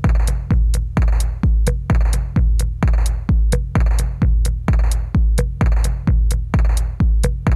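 Background electronic dance music with a steady drum-machine beat: a kick drum about twice a second with hi-hat ticks between the kicks.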